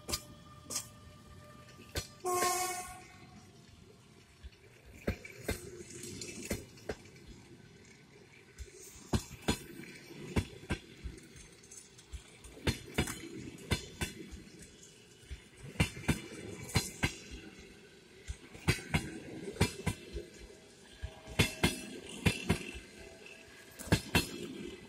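Passenger coaches of a fast train rolling past, their wheels clicking over rail joints in clusters of clicks every few seconds. A short horn blast sounds from the EP20 electric locomotive about two seconds in.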